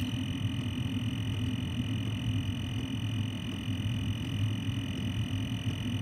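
Chinese 5 kW diesel air heater running steadily: an uneven low combustion rumble with a thin, steady high whine over it.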